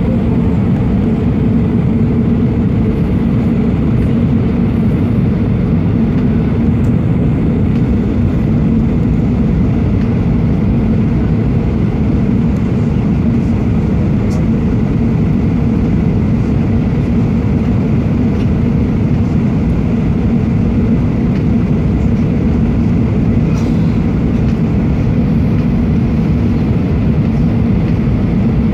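Cabin noise in an Airbus A319 airliner during descent, heard from a window seat beside the wing: steady engine and airflow rumble with a low hum, unchanging throughout.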